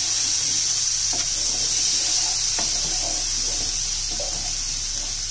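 Chopped onion sizzling steadily in melted butter in a pan, with a wooden spoon stirring and scraping it a few times.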